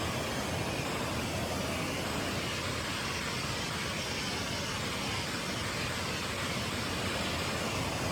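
Steady rushing water of a mountain creek or waterfall: an even, unbroken hiss.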